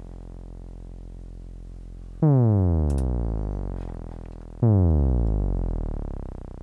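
Synth 'dip' sound from a u-he Zebra2 frequency-modulation sine-wave patch with pitch modulation. Two notes are struck, about two seconds in and again about two and a half seconds later. Each starts loud, swoops down in pitch and fades. A fading low hum from the previous note comes before the first one.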